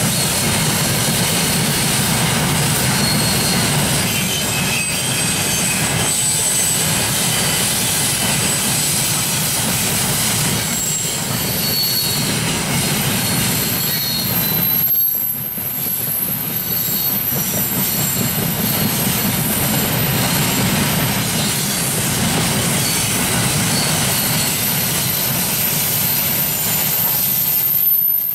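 Open freight wagons rolling past on the rails: a steady rumble of wheels with high-pitched wheel squeal coming and going over it, and a short lull about halfway through.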